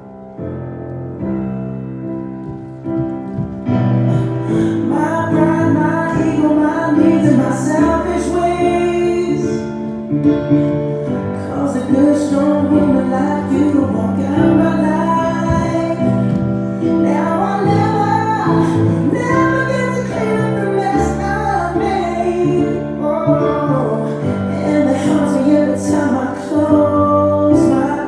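Music with a singing voice over instrumental accompaniment; it begins softly and grows louder and fuller about four seconds in.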